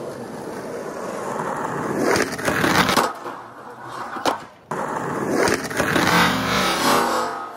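Skateboard wheels rolling on the skatepark ground, then the trucks grinding along the metal edge of a red curb in a slappy grind, and again along a second curb. The grinds are louder scraping stretches about two seconds in and again in the second half.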